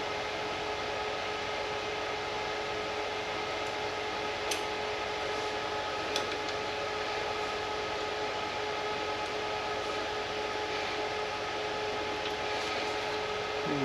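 Steady mechanical hum holding several even tones, with two faint clicks about four and a half and six seconds in.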